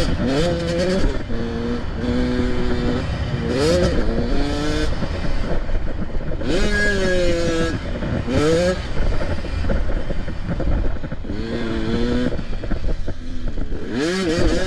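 85cc two-stroke motocross bike engine revving hard and backing off again and again, its pitch climbing and dropping with the throttle and gear changes.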